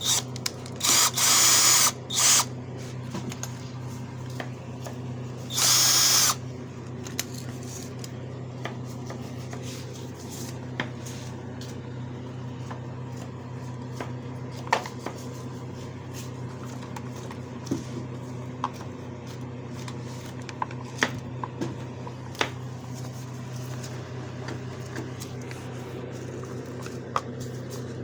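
A small electric motor hums steadily, with three short loud bursts of noise in the first six seconds and scattered sharp clicks of hand work after them.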